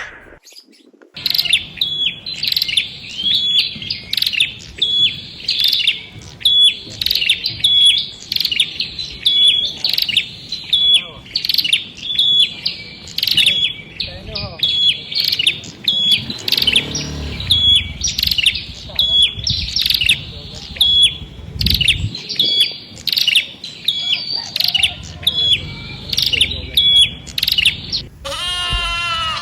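A bird chirping over and over, a short high call a little more than once a second, at a steady rate throughout. Near the end a loud wavering bleat begins.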